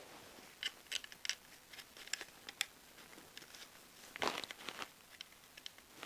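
Faint handling noises: scattered small clicks and rustles of a plastic doorbell unit and its cardboard packaging being picked up and turned in the hands, with a louder rustle a little over four seconds in.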